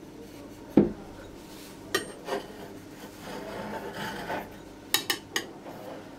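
Kitchen knife cutting through stacked yufka sheets around an upturned bowl, the blade scraping and giving sharp clicks against the tray and bowl rim. A single thump about a second in is the loudest sound.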